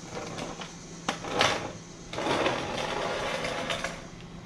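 Black plastic sewer hose storage tube knocking and scraping as it is set down and slid along the concrete under an RV: one click about a second in, a louder scrape just after, then a longer stretch of scraping.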